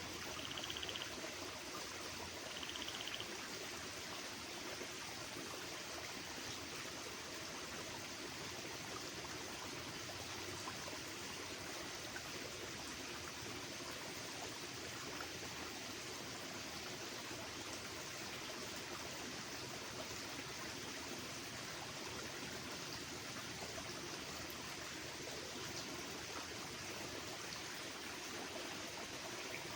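Steady rush of flowing water, with two short, high chirps from a small bird in the first three seconds.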